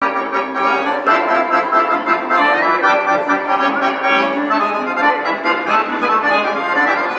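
Accordion playing a tune, with a melody and chords sounding together without a break.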